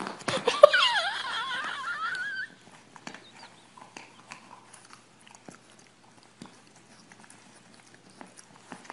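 English bulldog puppy whining for about two seconds, its pitch wavering up and down as it scrambles onto a leather ottoman. After that come faint scattered clicks and scuffs from its paws and claws on the leather.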